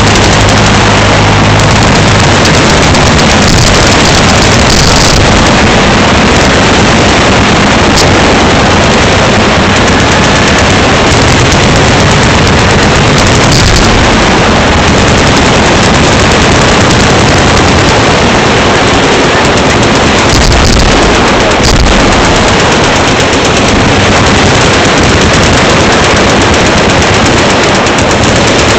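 Sustained automatic fire from many machine guns shooting at once, so loud and dense that the shots merge into a continuous wall of noise that overloads the microphone.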